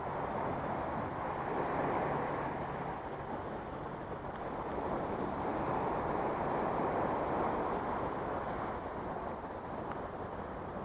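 Small sea waves breaking and washing over rocks, a steady rushing surf that swells a couple of times. A faint low hum dies away about three seconds in.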